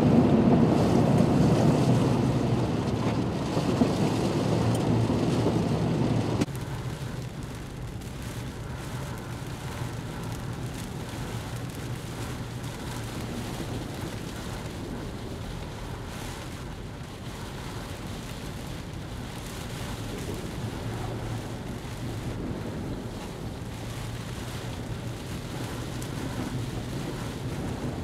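Storm wind and rain rushing around a vehicle driving the flooded road, as a steady noise with no distinct events. Louder and fuller for the first six seconds, then it drops suddenly to a lower, even rush.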